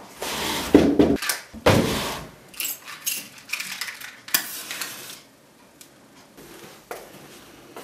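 Household objects being rummaged through by hand. Two loud rustling scrapes come in the first two seconds, then a string of small clinks and rattles, and it dies down after about five seconds.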